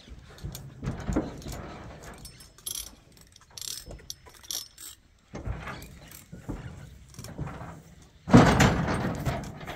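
A horse's hooves knocking and scraping on a livestock trailer's floor, with the trailer rattling, as the horse shifts about and then steps out. The loudest burst of thumps and rattling comes near the end as it steps down.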